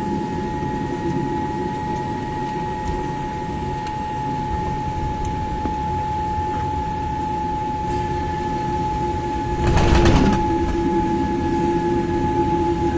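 Cabin noise inside a Boeing 787-8 Dreamliner on the ground after landing: a steady high whine of the aircraft's systems over a low rumble and hiss. About ten seconds in comes a brief loud rattle.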